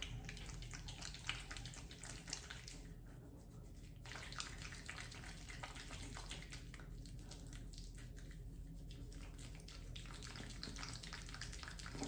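Hands rubbing foaming face cleanser over a wet face: a faint wet swishing and squishing of lather, coming in uneven bursts with short pauses.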